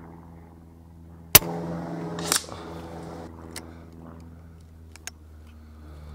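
A single shot from a Daystate Red Wolf high-power (FAC) pre-charged air rifle: one sharp crack about a second and a half in, followed by a second, softer report about a second later. Then a few short metallic clicks as the side lever is worked to cycle the next slug.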